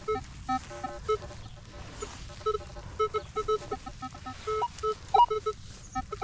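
Metal detector giving a run of short, irregular beeping tones at a few set pitches as its coil is swept over the ground.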